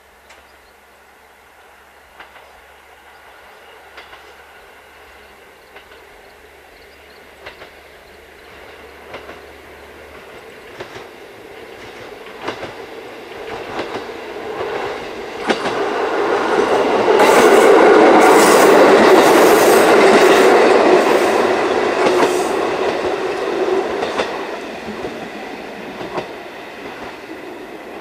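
KiHa 40 series diesel railcar approaching and passing close by, its diesel engine running and its wheels clicking over the rail joints. The sound builds steadily, is loudest about 17 to 22 seconds in, then fades as the railcar moves away.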